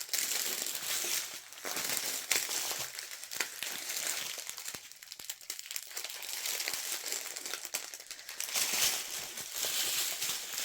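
Small plastic bags of diamond painting drills crinkling as they are rummaged through by hand, a continuous irregular rustle with small clicks.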